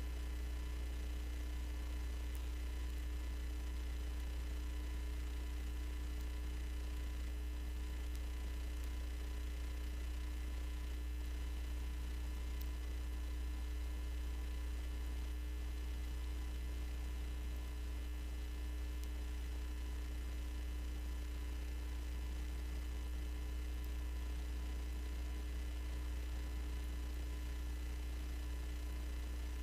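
Steady low electrical mains hum with a few faint, unchanging higher tones above it, and no other sound.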